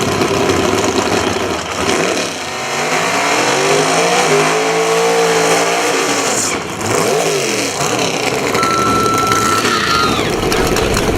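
Race cars' engines revving hard, the engine pitch climbing and falling, then climbing and falling again about seven seconds in. A short steady high whistle is heard near the end.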